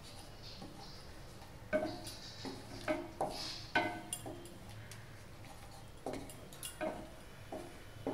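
A spatula stirring thick masala in an Amway Queen stainless steel sauté pan: irregular scrapes and light knocks against the pan, starting about two seconds in, over a faint low hum.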